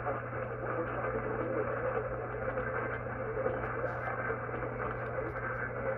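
Weak, distant AM broadcast signal playing through a radio's speaker: a steady hiss of static with a low hum under it, in the narrow muffled sound of AM reception, with at most faint traces of the station's audio buried in the noise.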